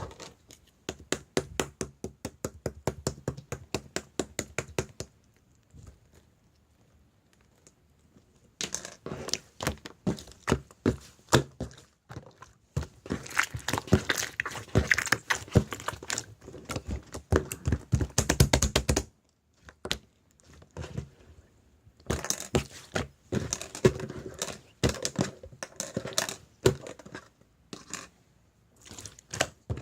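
Slime being squished and pressed by hand, giving runs of quick clicking and crackling pops. One run comes at the start, a longer and denser one from about nine to nineteen seconds in, and another a few seconds later, with quiet pauses between them.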